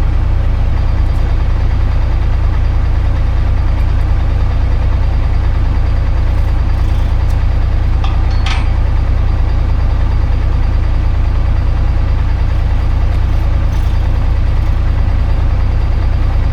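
Tractor engine idling steadily with a constant low drone. About eight and a half seconds in there is a single short metallic clink.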